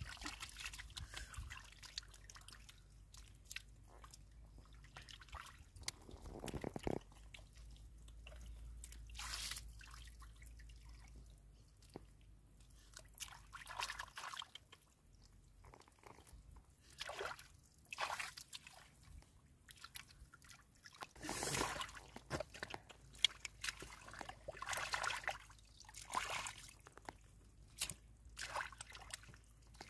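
Hands sloshing and splashing in a shallow muddy puddle while grabbing small fish, as short irregular splashes and drips at scattered moments.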